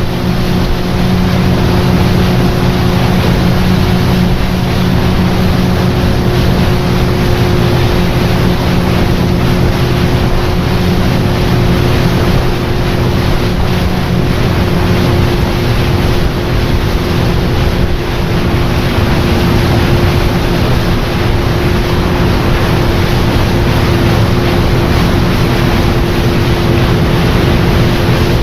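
Tour boat's motor running steadily under way, a constant hum over a broad rush of wind and water.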